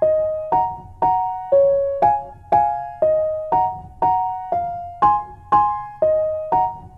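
Background music: a soft keyboard melody in piano tone, two-note chords struck about twice a second, each note fading away before the next.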